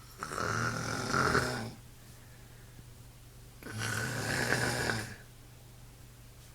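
A person snoring in deep sleep: two long, rasping snores, each about a second and a half, the second starting about three and a half seconds after the first.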